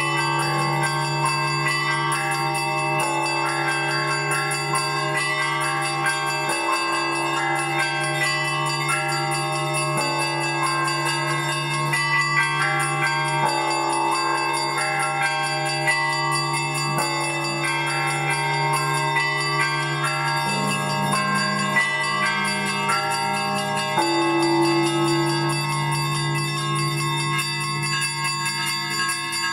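Russian Orthodox church bells rung together: the deep bass bells sustain a steady low hum while the smaller bells are struck continuously in a dense, ringing pattern over them.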